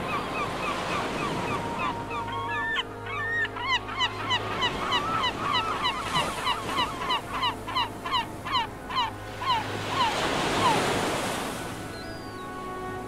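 Surf washing onto a shingle beach, with a rapid series of short, falling bird-like calls, about three a second, through the middle. A wave rushes in louder about ten seconds in.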